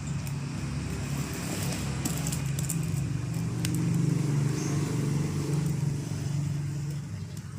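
A motor vehicle engine running steadily, growing louder about four seconds in and easing off near the end, with a few light clicks.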